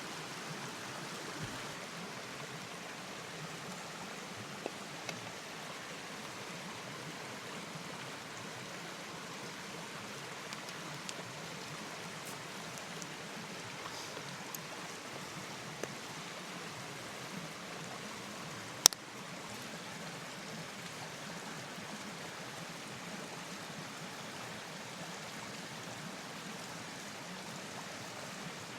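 Steady hiss of rain and flowing stream water, with scattered light ticks and one sharp click about 19 seconds in.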